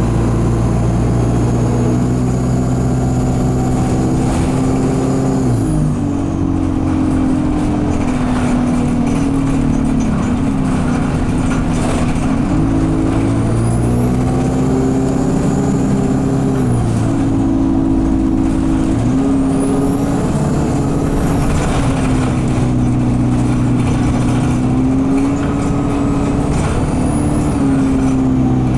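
Alexander Dennis Enviro200 bus's diesel engine pulling and easing off several times, its pitch stepping up and down, with a high turbo squeal that rises and falls with each pull. The gearbox is stuck in second/third gear.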